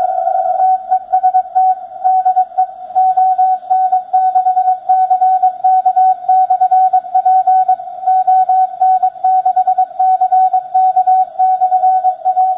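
Morse code signal heard through a software-defined radio receiver tuned to the 40-metre amateur band: a single tone keyed rapidly on and off in dots and dashes, after a short held tone at the start.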